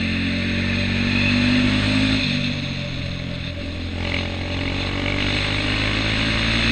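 Music mixed with a KTM Duke 390's single-cylinder engine running at a steady pace. The pitch shifts in steps about two and four seconds in.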